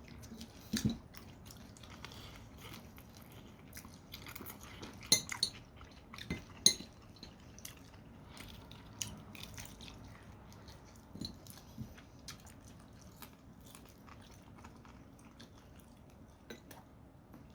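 Quiet eating sounds from a chicken, tteokbokki and cheese-ball meal: chewing, with scattered clicks and clinks of cutlery and dishes, the loudest a little after five seconds in and again about a second and a half later.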